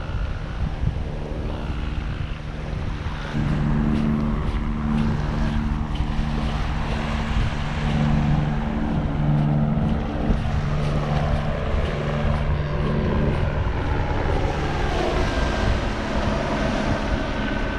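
A motor engine running with a steady low hum at a constant pitch, swelling about three seconds in and easing off after about thirteen seconds, over a steady rushing noise.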